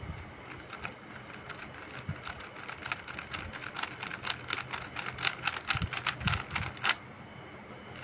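GAN 3x3 speed cube being turned by hand, its plastic layers clicking as they rotate. The clicks are sparse at first, become a fast flurry of turns from about three seconds in, and stop abruptly near the end.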